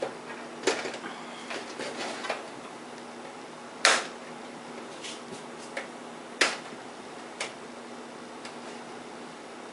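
Plastic computer case parts being handled and popped loose: scattered sharp clicks and knocks, the two loudest about four and six and a half seconds in.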